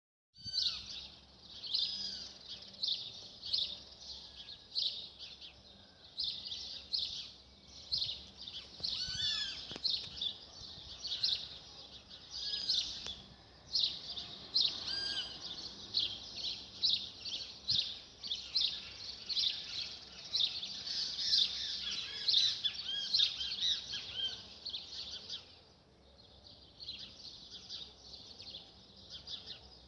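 A dense evening chorus of many small birds chirping and calling at once, short quick notes overlapping without pause, thinning out somewhat near the end.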